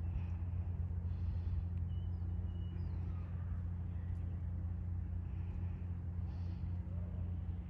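Steady low rumble with a hum running under it, and a few faint, short high chirps a couple of seconds in.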